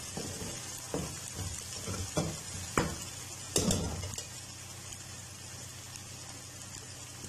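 Onions and ground spices (red chilli, turmeric, salt) sizzling in hot oil in a metal kadhai as they are fried (bhuna) and stirred with a metal slotted spoon. Four sharp scrapes and knocks of the spoon against the pan come in the first four seconds, then only the steady sizzle.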